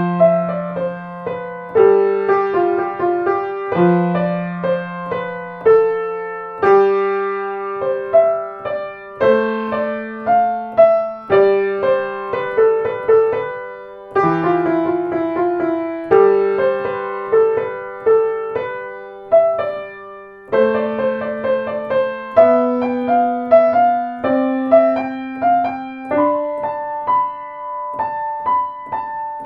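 Solo piano music played on a Blüthner grand piano: slow chords with a melody on top, each note struck and left to ring and fade, the harmony changing about every two seconds.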